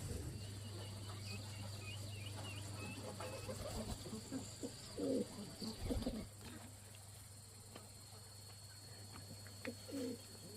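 Birds calling: a dove cooing a few times, with faint high chirps, over a low steady hum that stops about six seconds in.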